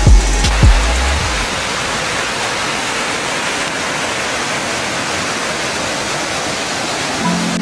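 Mountain stream rushing and splashing over boulders, a steady even rush of water. A couple of deep thumps sound in the first second, and a low held tone comes in near the end.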